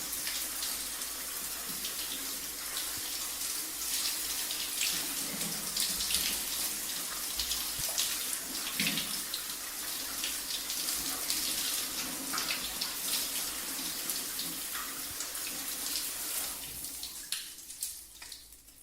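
Shower running, water spraying and splashing steadily in a small room, then dying away over the last couple of seconds as the flow stops.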